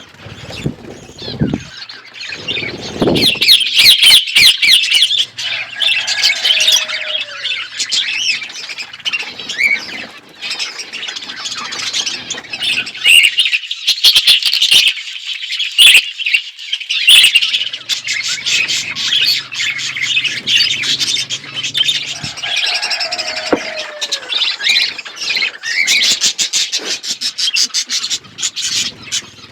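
A flock of budgerigars chattering and chirping nonstop, many birds at once, with some squawks mixed in.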